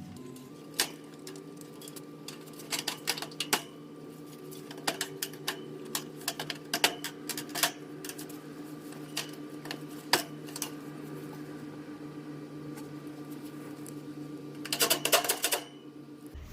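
Scattered sharp clicks and metallic taps as tools and sheet-metal panels of an AC condenser unit are put back together, with a quick flurry of clicks near the end. A steady low hum runs underneath.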